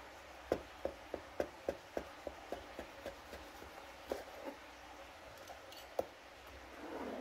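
Kitchen knife sawing through the crust edge of a sandwich on a plastic cutting board: a run of crisp ticks about three to four a second that fade, then a few more strokes and a sharper knock about six seconds in.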